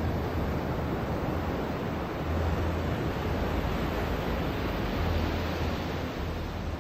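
Ocean waves washing onto a beach: a steady rushing wash of surf that swells gently a couple of times.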